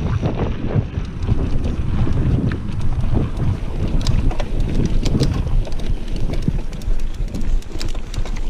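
Wind buffeting the camera microphone on a fast mountain-bike ride down dirt singletrack, over a low rumble from the tyres on the trail. Scattered sharp clicks and rattles from the bike grow more frequent from about three seconds in.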